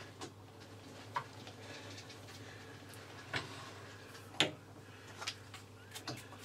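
A handful of light metallic clicks and clinks, the loudest about four seconds in, as a threading die in its holder is backed off a freshly cut thread on a lathe turned by hand. A low steady hum runs underneath.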